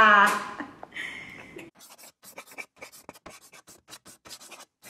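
A short laugh at the start gives way to a handwriting sound effect: a pen scratching quickly across paper in short, irregular strokes, several a second, as the title is written out.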